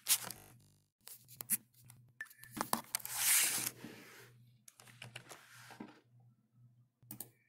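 Computer mouse clicking a few times, with a short rustling hiss about three seconds in, over a faint steady low hum.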